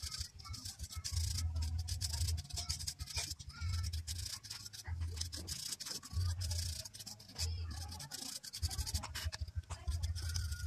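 Paintbrush bristles scrubbing dust off the plastic parts of a power-supply cooling fan in quick, scratchy strokes. A low rumble comes and goes throughout.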